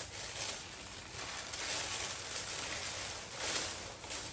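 Tissue paper rustling and crinkling as it is pulled open in a shoebox to unwrap a shoe, in uneven swells, loudest about three and a half seconds in.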